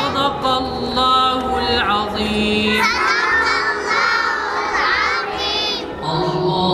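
A group of young children chanting together in unison. About three seconds in, their voices leap high, close to shouting, then drop back to a lower chant near the end.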